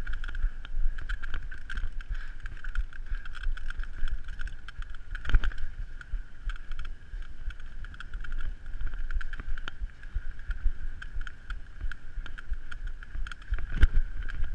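Specialized Demo 8 downhill mountain bike ridden fast down a dirt singletrack: tyre rumble and chain and frame rattle over roots and bumps, with a steady high buzz throughout. Two hard knocks stand out, one about five seconds in and one near the end.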